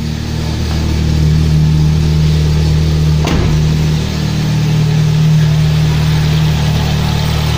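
Newly fitted Vauxhall Ecotec engine running at idle on its first long start, a steady hum, with a single sharp knock about three seconds in.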